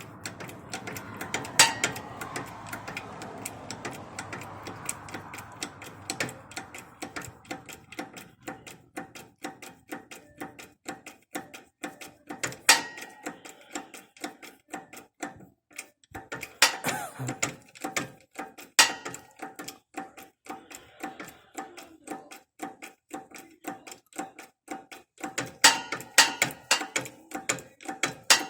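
Rapid, even metal-on-metal taps, about four a second, with a handful of much harder strikes, as a new rear axle wheel bearing is driven into place through a stack of scrap metal and the old bearing laid on top of it.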